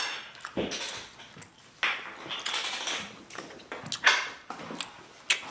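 Knife and fork clicking and scraping on a plate while cutting chewy venison tenderloin, with scattered clicks and a louder clatter about four seconds in.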